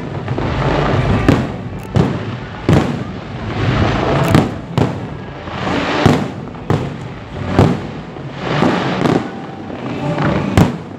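Aerial fireworks display: sharp bangs of shells bursting about once a second, with crackling between them.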